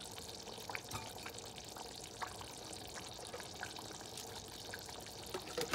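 Pot of garlic butter sauce bubbling at a boil: a steady hiss with scattered small pops.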